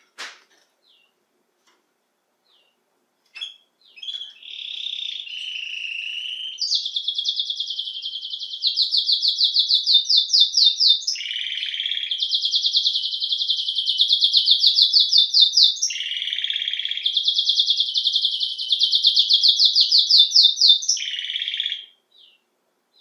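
Domestic canary (Belgian canary) singing: a few short chirps, then from about four seconds in one long unbroken song of rapid rolling trills. Short lower-pitched passages break in about every five seconds, and the song stops shortly before the end.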